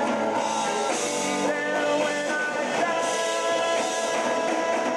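Live rock band playing, with a Stratocaster-style electric guitar carrying long held notes, one of them bent upward about one and a half seconds in.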